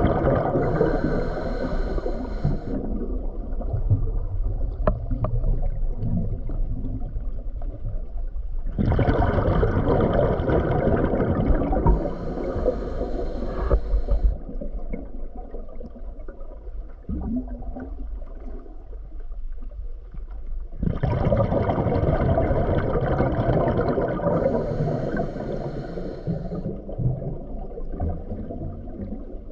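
Underwater bubbling and gurgling that swells in three long surges about twelve seconds apart, each ending with a brief hiss, and dies back to a low rumble in between.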